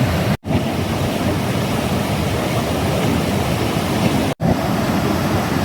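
Fast-running mountain stream rushing loudly and steadily, broken twice by a brief silent gap, about half a second and about four seconds in.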